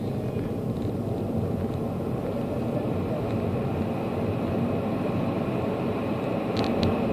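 Car driving along a road: steady engine and road noise, with a few short clicks near the end.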